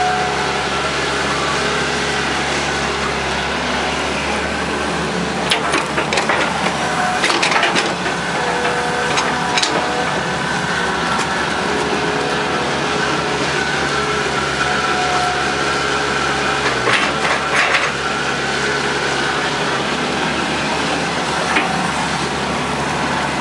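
Hitachi EX120 hydraulic excavator's diesel engine running under load with a steady hydraulic whine that shifts in pitch as the boom and bucket work. Clusters of clanks and knocks come about a quarter of the way in and again about three quarters through, with single ones between.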